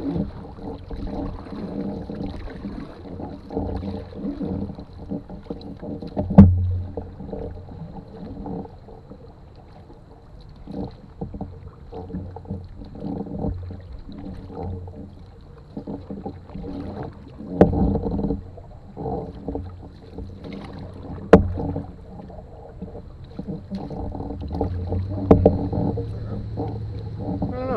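Canoe being paddled: a wooden paddle dipping and pulling through the water in uneven strokes with splashing. Four sharp knocks on the canoe stand out, about six, eighteen, twenty-one and twenty-five seconds in.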